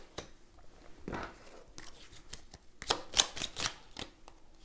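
A deck of tarot cards handled and shuffled by hand: soft papery card sounds, with a quick run of louder snaps about three seconds in.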